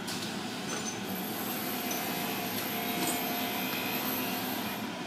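Steady room hum and hiss, like a fan or ventilation running, with a faint high whine that starts about a second in.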